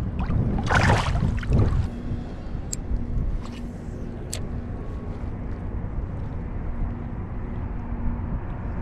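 Wind rumbling steadily on an action-camera microphone. Near the start there is a short splash of water as a bass is released from the hand, and two sharp clicks come a few seconds later.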